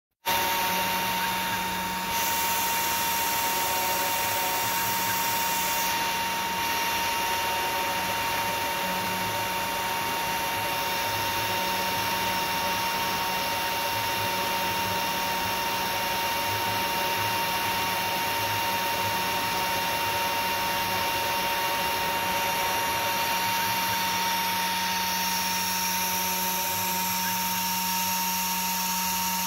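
Spring-loaded CNC spindle, a can-type DC motor with an engraving bit, running at steady speed while milling soldermask off a copper-clad board. It gives a constant whine with a single steady tone over a hiss.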